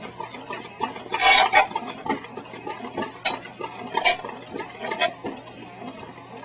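Hard objects being handled: clattering and sharp clicks, with a louder rustling burst about a second in.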